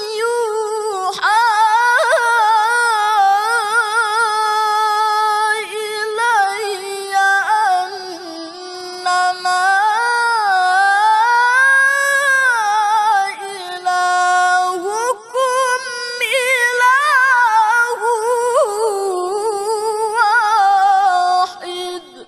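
Male qari reciting the Quran in the melodic mujawwad style, holding long high notes with quavering ornaments as the pitch climbs and falls. There are a few short breaks for breath.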